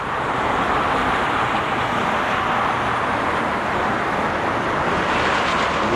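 Steady rushing roar of nearby freeway traffic, an even wash of tyre and engine noise with no single vehicle standing out.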